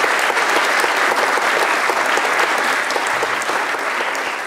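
Audience applauding steadily, slowly fading near the end.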